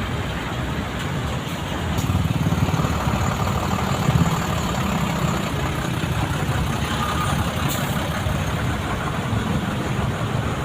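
Heavy truck engine running steadily with a low rumble, growing louder about two seconds in.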